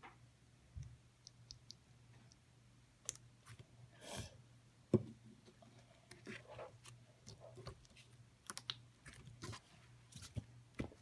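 Light pink slime being squished and worked by hand, giving irregular small clicks, pops and squelches. The sharpest click comes about five seconds in, over a faint steady hum.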